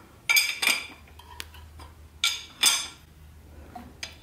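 Large steel spanner clinking against a rear main seal installer tool as it is turned to screw the tool down and press a new crankshaft rear main seal into the engine. There are two pairs of sharp metallic clinks, each pair about half a second apart: one near the start and one about two seconds in.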